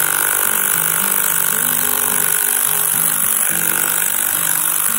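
Impact wrench running on a heated, rusted nut on the crawler's steering-clutch hub, with background music playing over it.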